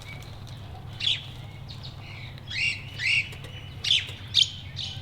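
Australian magpies giving short, sharp calls, about five spread through the few seconds, over a steady low hum.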